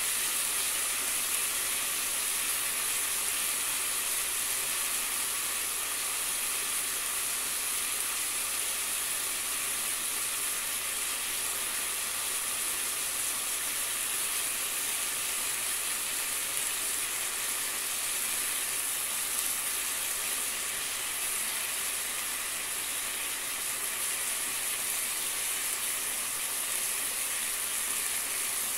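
Boneless chicken breasts frying in a pan, sizzling steadily in their oil and juices.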